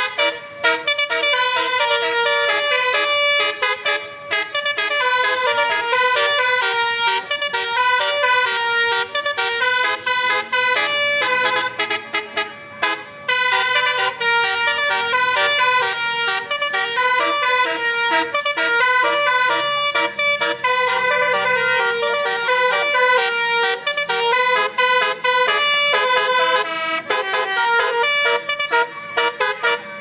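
Tour bus's telolet "basuri" multi-tone horn playing a fast, rhythmic tune of many short tooted notes, without a break.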